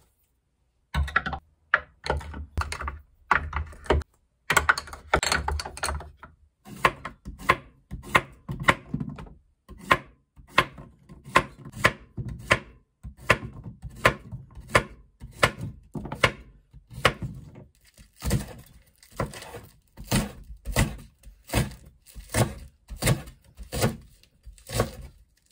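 Kitchen knife slicing through zucchini and onion onto a wooden cutting board, the blade knocking the board in steady cuts about two a second. Before the steady cutting, in the first few seconds, there are a few heavier knocks and handling sounds.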